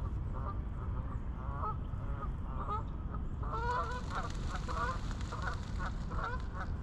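Geese honking again and again, the short calls coming faster and louder from about halfway through.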